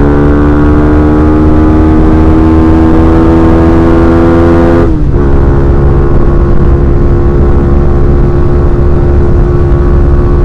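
Yamaha Scorpio's single-cylinder four-stroke engine pulling under way, its pitch rising slowly as the bike accelerates. About five seconds in, the pitch drops sharply as the rider shifts up a gear, and the engine then runs steadily at the lower pitch.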